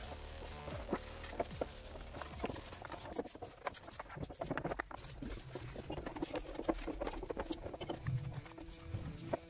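Stiff brush scrubbing a brush cutter's plastic fuel tank in soapy water: quick, irregular scratchy strokes with wet splashing.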